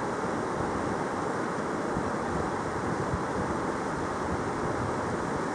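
Steady rush of a fast-flowing river running over rocks and small rapids.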